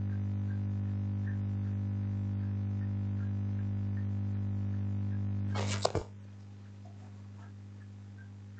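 Steady low hum made of a few even tones, with a short rustle or bump about six seconds in, after which the hum carries on much quieter.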